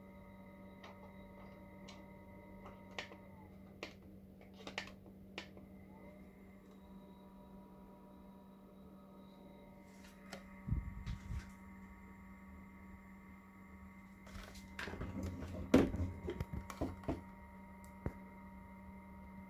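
Small cordless fan's motor running on its battery pack with a steady low hum and faint whine that changes pitch partway through. Scattered clicks and a few louder knocks come from the fan's buttons and from handling it.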